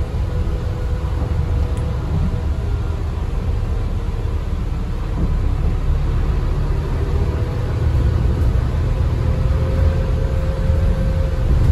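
Cabin noise of a Scania K320UB hybrid city bus under way: a steady low rumble with a faint wavering whine, growing a little louder about two-thirds of the way through.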